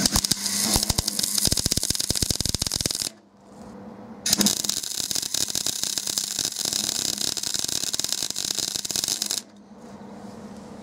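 Steel pedal pads being welded back onto brake and clutch pedals: welding crackle in two runs, the first about three seconds long, the second starting about a second later and running about five seconds, each starting and stopping abruptly.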